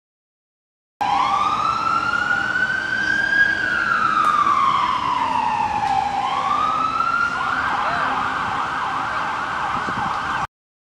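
Ambulance siren in a slow wail, rising, falling and rising again. About two-thirds of the way through it switches to a fast yelp. It starts about a second in and cuts off abruptly near the end.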